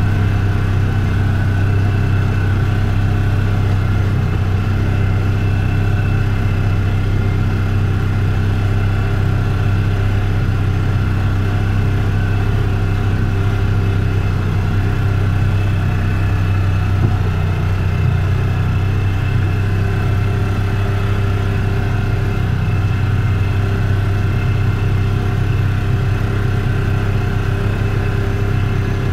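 Polaris Ranger UTV engine running at a steady, even speed while driving, a low drone that holds the same pitch throughout.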